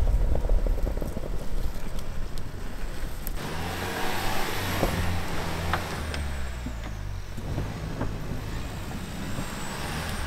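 A Ford Bronco's engine running steadily as it drives slowly through deep snow. A loud low rumble fills the first three seconds, then gives way abruptly to a steady engine hum with a light hiss above it.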